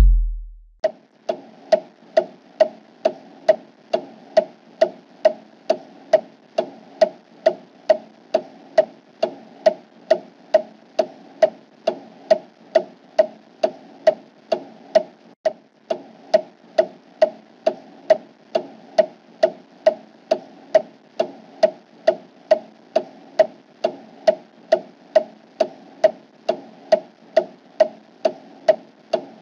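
Clock ticking steadily at about two ticks a second, starting about a second in as a fading tail of electronic music dies away.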